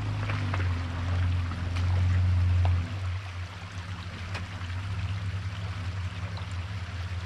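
Toyota Land Cruiser's engine running as the truck crawls over rocks, louder under throttle until a little under three seconds in, then dropping back to a steady idle. A steady hiss runs underneath, and there are a few faint sharp clicks.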